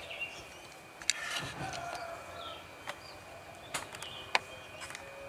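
Small plastic and die-cast clicks and taps as fingers handle a toy dump truck model and tilt its dump bed up. There are a few separate sharp clicks, the loudest about a second in.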